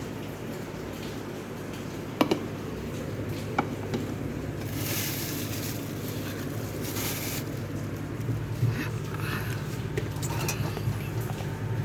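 Handling noises from items in a refrigerator: a few sharp clicks and two brief bursts of rustling, over a steady low hum.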